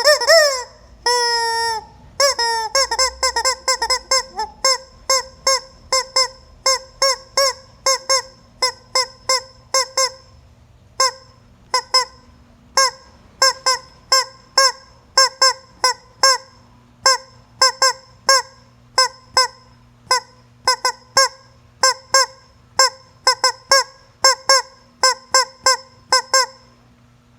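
Squeeze toy chicken honking over and over as it is squeezed: a few longer falling squawks at first, then a long run of short, near-identical honks at about two a second, each with a hissy edge.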